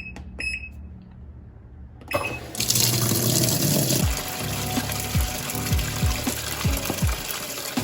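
A portable washing machine beeps twice as its control panel is set, then, about two seconds in, water starts rushing into the tub as the cycle begins filling. From about four seconds in, background music with a steady beat plays over it.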